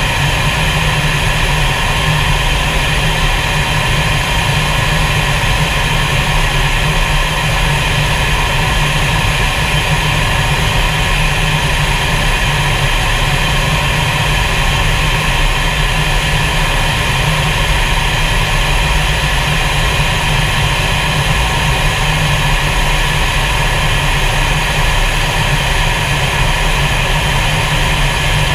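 Fighter jet cockpit noise: the jet engine and rushing air make a steady, unchanging drone with a low hum and several constant higher tones, heard from inside the cockpit.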